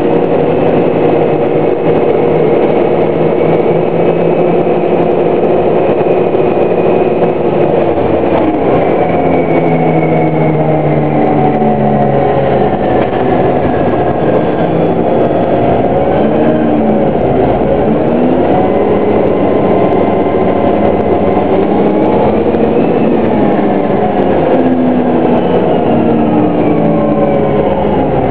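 2009 Orion VII hybrid-electric bus running with its BAE HybriDrive system and Cummins ISB diesel engine: several whining tones from the electric drive glide up and down in pitch as the bus speeds up and slows, over a steady low engine rumble.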